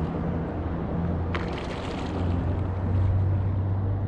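Wind buffeting the microphone over water noise around a kayak being towed by a hooked fish, with a steady low hum underneath. A single sharp click comes about a second and a half in.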